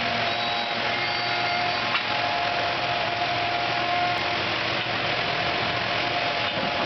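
CNC router carving wood: the spindle runs with a steady whine over the constant hiss of the bit cutting.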